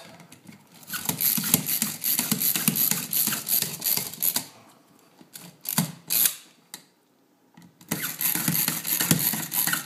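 A Power2U AC/USB wall outlet and its wires scraping, rubbing and knocking against the electrical box as the deep outlet is pushed into a tight fit, in irregular bursts with a brief pause about seven seconds in.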